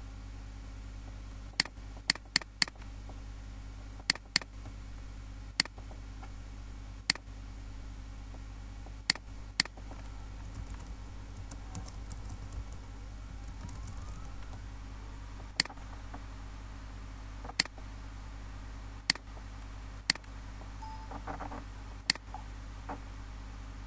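Computer mouse and keyboard clicks: a dozen or so sharp single clicks, some in quick pairs, with softer keystroke ticking around the middle, over a steady low hum.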